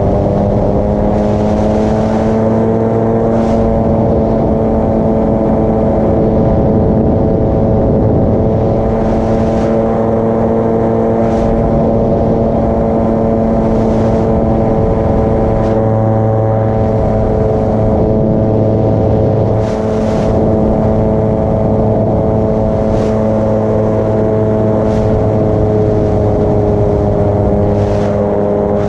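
Paramotor engine and propeller running steadily, the pitch rising a little in the first few seconds and then holding.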